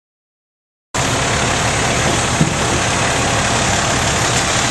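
Silence, then from about a second in a fire engine's engine running steadily, a loud, even mechanical noise, with a small click about two and a half seconds in.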